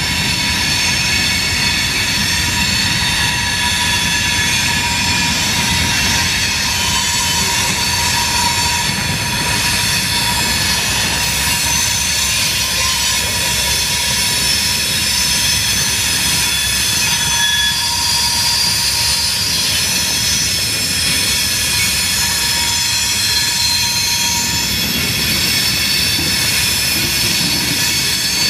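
Freight train rolling past on a curve: flatcars loaded with steel coils, their steel wheels squealing in several steady high tones over the constant rumble of wheels on the rails. The squeal comes from the train turning through the curve.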